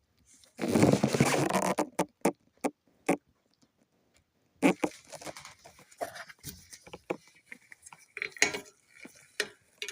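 Metal-on-metal handling noise at a car's rear drum brake: a loud rasping scrape lasting about a second, then four sharp clicks, and after a short pause a run of lighter clicks and scrapes, as a screwdriver works at the stuck brake drum and its adjuster.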